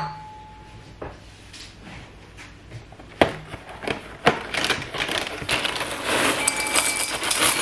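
A spoon clicking against a ceramic cereal bowl a few times, then a longer stretch of crunching cereal being chewed, about five seconds in.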